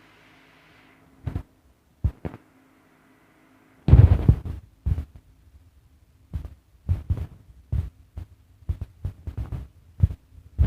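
Irregular knocks and thumps, a few sparse at first, then a heavy cluster about four seconds in and a quicker run of knocks toward the end, over a faint steady low hum.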